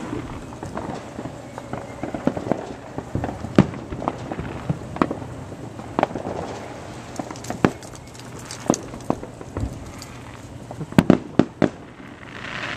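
Fireworks going off: a scattered string of sharp bangs and pops at irregular intervals, with a quick run of several near the end.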